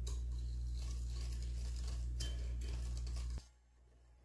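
Wire whisk beating egg yolks and sugar in a glass bowl, the wires clinking against the glass a few times over a steady low hum. The sound cuts off suddenly about three and a half seconds in.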